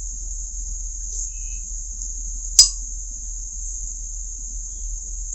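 A spoon clinks once against a soup bowl about two and a half seconds in, a short sharp click with a brief ring. A steady high-pitched hiss runs underneath.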